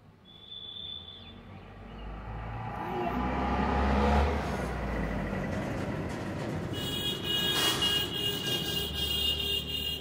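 Road traffic: a vehicle passes with a low rumble that swells to its loudest about four seconds in. From about seven seconds in, a steady high-pitched tone sounds on top of the noise.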